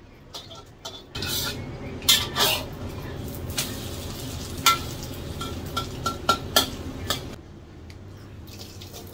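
Mie goreng omelet sizzling in oil in a wok, with a metal spatula scraping and clanking against the wok a dozen or so times, some strikes ringing briefly. The sizzle and clanking stop about seven seconds in.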